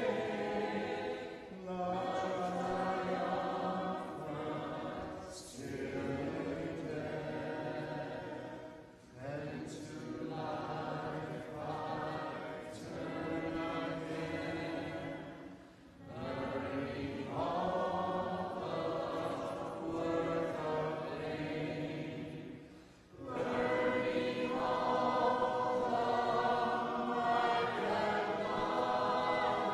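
Congregation singing a hymn a cappella, many voices together in sung lines with short pauses between phrases.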